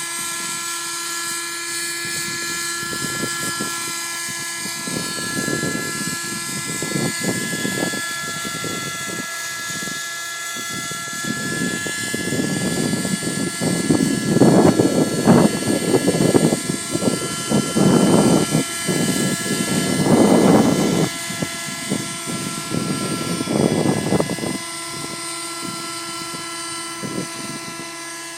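Thunder Tiger Raptor 30 V2 nitro RC helicopter running with a steady high-pitched whine from its glow engine and rotors. Gusts of wind buffet the microphone through the middle, loudest in the second half, then die away near the end.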